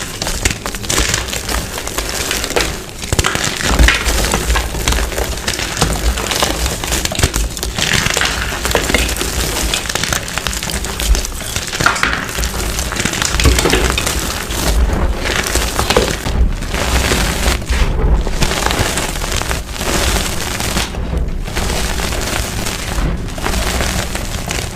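Blocks of dyed gym chalk being crushed. There is dense, continuous crunching and crumbling with many small cracks and frequent low thuds.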